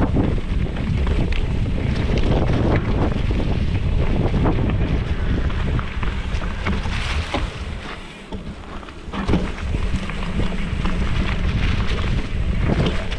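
Mountain bike, a Yeti SB115 on Maxxis Minion DHR tires, riding dirt singletrack: wind buffets the handlebar-mounted camera's microphone over the tires rolling on the trail, with scattered clicks and rattles from the bike over bumps. The rumble drops briefly about eight seconds in.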